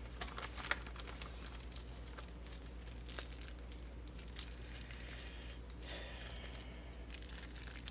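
A double plastic bag crinkling and rustling as it is handled and opened, with an irregular scatter of small crackles.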